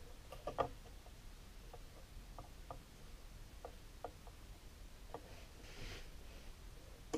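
Faint clicks and taps of a flat steel clock hand being handled and fitted on a wooden clock face, with a sharper cluster of clicks about half a second in, then scattered single ticks. A brief soft scrape comes near the end.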